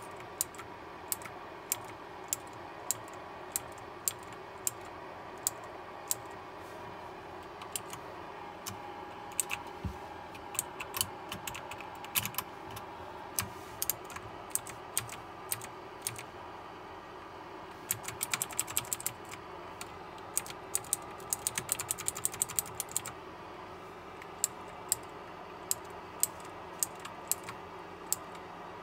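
Keys of a KLIM Domination keyboard clicking as they are pressed one at a time, about once a second, with two quick flurries of rapid key presses a little past halfway.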